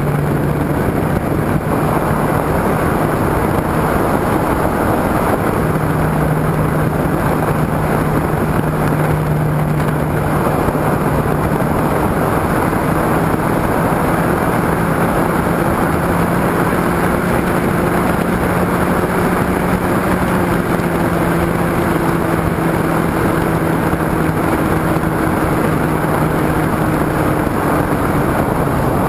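Nose-mounted motor and propeller of a radio-controlled motor glider running in flight, a steady hum that drifts slightly up and down in pitch and fades near the end, under a loud rush of air over the camera.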